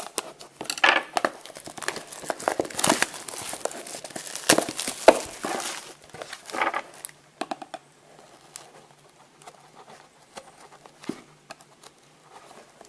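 Wrapping on a sealed baseball card box being torn open and crinkled for about six seconds, then quieter scattered handling and clicks as the box is opened.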